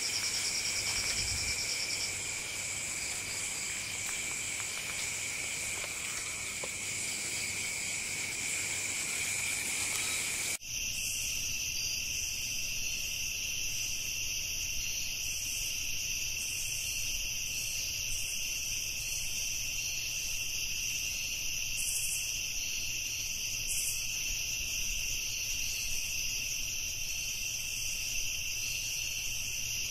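Steady high-pitched chorus of night insects, several pitches sounding together without a break. About a third of the way in the chorus changes suddenly to a slightly different set of pitches.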